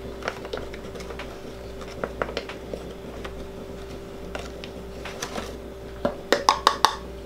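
Flour being scooped with a measuring cup from a paper bag and tipped into a bread machine's metal pan: soft scrapes and rustles with scattered light taps, over a steady low hum. Near the end a quick run of sharper clinks, the cup knocking against the pan's rim.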